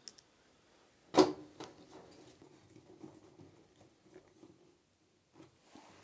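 Phillips screwdriver driving a screw into the sheet-metal back panel of a washing machine: one sharp click about a second in, then a run of faint small ticks and scrapes.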